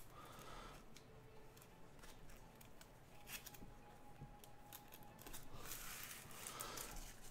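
Faint handling noise of Topps Chrome baseball cards being sorted in the hands: light slides and soft clicks of the cards against one another, a little louder near the end.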